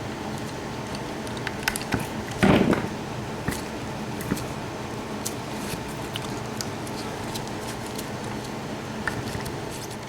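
Wire snippers stripping insulation off thin electrical wires: small scattered clicks and snips, with a louder short rustle about two and a half seconds in.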